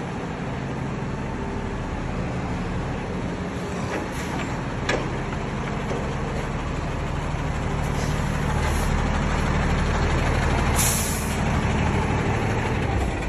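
A truck's diesel engine idling steadily, getting louder in the second half, with a short hiss about eleven seconds in.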